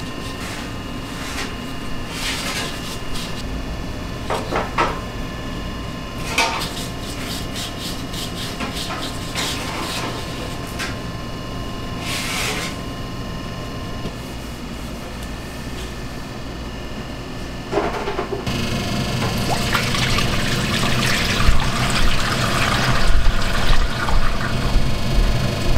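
Light rubbing and tapping as dough is rolled and set down on a metal baking tray, over a steady shop hum. About two-thirds in, a gushing, splashing pour of cooking oil from a plastic jug into a stainless steel deep fryer begins suddenly and grows louder.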